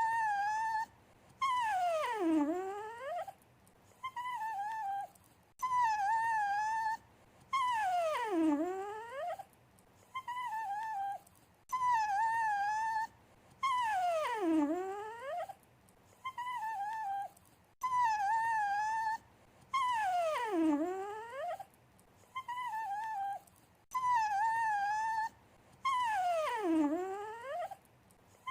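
A dog whining and whimpering: a short wavering whine, then a longer whine that slides down in pitch, the same pair repeating about every six seconds, five times over.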